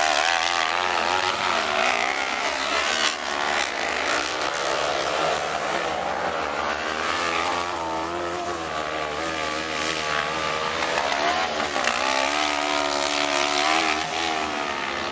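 Several 500 cc kart cross buggies racing on dirt, their engines revving up and down together as they accelerate out of corners and lift off into them.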